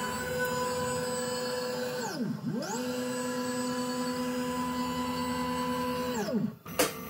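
Stepper-motor whine of an Ultimaker S5 moving its build plate after a failed bed levelling. Two moves each rise in pitch to a steady whine, hold, then fall away, with a short pause about two seconds in. A sharp click comes near the end.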